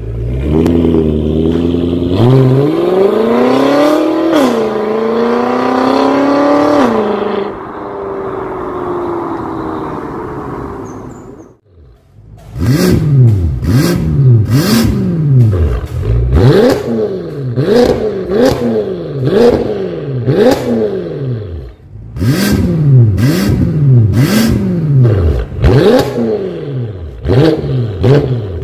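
BMW M5 F10 twin-turbo V8 starting and flaring in revs, then settling and fading out. After a cut, quick throttle blips about once a second, each with sharp crackles from the exhaust, first with the aftermarket valvetronic exhaust in standard mode, then after another cut in racing mode with the valves open.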